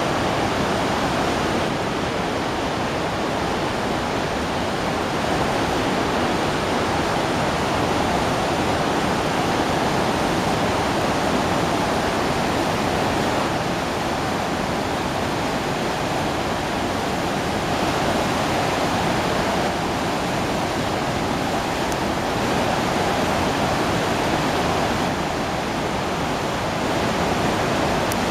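Sarpsfossen, a large river waterfall on the Glomma, pouring at a high flood flow: a loud, steady rush of falling water that hardly varies.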